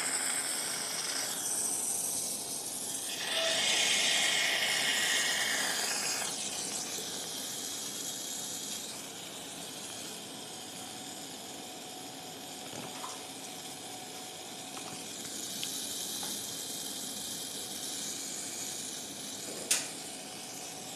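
Surgical suction through a perforated Poole suction tip drawing warm saline lavage fluid out of the open abdomen: a steady hiss, loudest from about three to six seconds in and quieter after. A single sharp click near the end.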